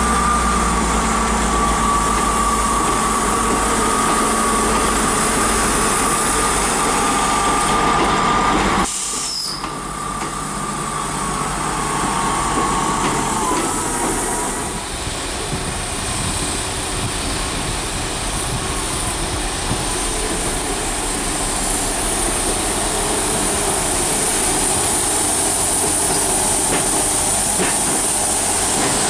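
Passenger train running at a station, with a steady whine for the first nine seconds. The sound breaks off abruptly, then continues as an even rumble with a high hiss.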